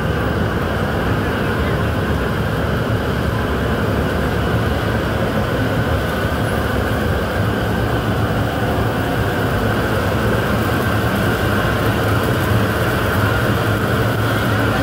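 Gas-fired rotating-drum chili roasters running with green chilies tumbling inside: a loud, steady rumble that does not change.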